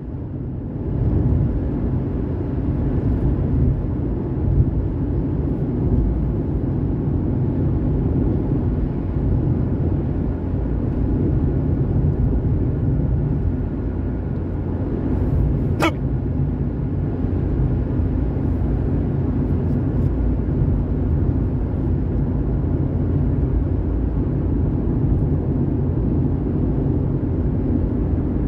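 Steady car cabin noise from road and engine while driving, with a single short hiccup a little past halfway through.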